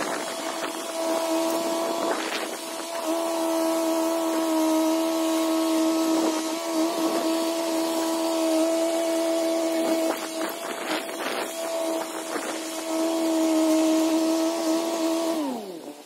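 John Deere 450B bulldozer running hard at high throttle with a steady whine, and a few sharp knocks and cracks along the way. Near the end the pitch slides down as it throttles back.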